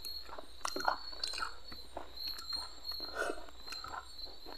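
Close-up chewing of fried masala fish: irregular wet mouth sounds and small clicks as he eats.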